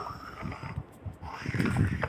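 Creaking and rubbing noises, like old wood straining, from an abandoned-house sound-effect mix. They die down about a second in and swell again near the end.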